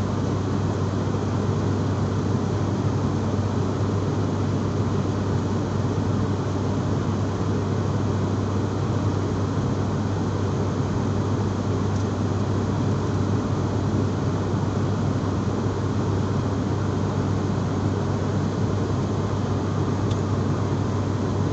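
Steady drone of an aircraft, a constant rushing noise over a low hum, with no change in pitch or level.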